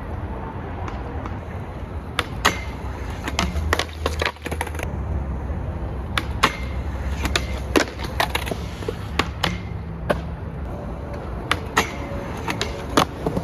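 Skateboard wheels rolling on concrete with a steady low rumble, broken by many sharp clacks of the board popping and landing. Near the end the board hits the metal handrail.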